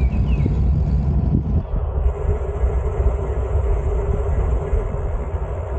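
Wind buffeting the microphone during a bicycle ride: a steady low rumble, with a faint even hum underneath from about two seconds in.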